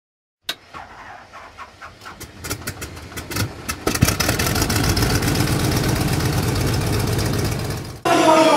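Intro sound effect: a run of clicks that speeds up, swelling about four seconds in into a loud, steady rumbling noise that cuts off abruptly near the end.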